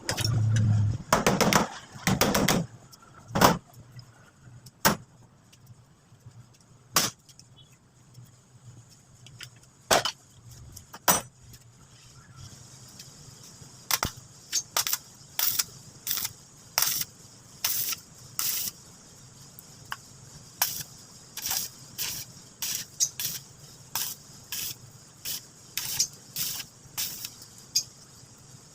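Irregular sharp clicks and knocks, a cluster of heavier knocks in the first few seconds and then single clicks every second or so, over a faint steady high hiss: hand work on the fryer's parts during the repair.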